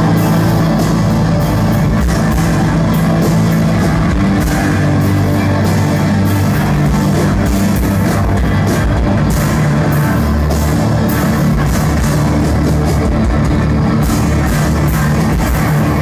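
A hardcore band playing live and loud: distorted electric guitars, bass and drum kit, heard from within the crowd of a small club.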